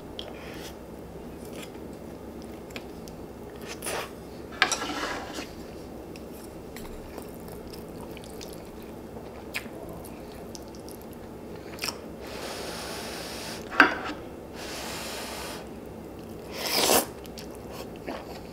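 A person eating close to the microphone, chewing and crunching, broken by scattered sharp clicks and several short louder rushes of noise; a sharp click about three-quarters of the way through is the loudest.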